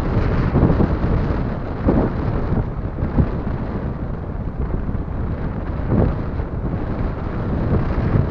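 Wind buffeting the microphone: a loud, low rumbling noise that swells in irregular gusts.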